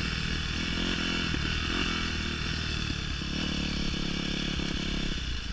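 Yamaha YZ250F dirt bike's single-cylinder four-stroke engine running steadily at low speed as the bike rolls along a gravel road.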